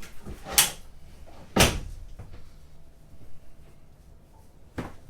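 Three sharp knocks, like lids or doors being shut. The second, about a second and a half in, is the loudest and deepest thud.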